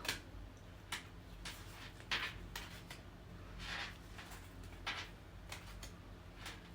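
Tarot cards being handled one at a time: soft papery swishes and light taps, about one every half second to a second.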